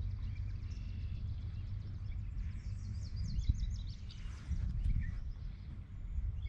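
Birds chirping over a steady low rumble, with a quick run of high bird notes about three seconds in.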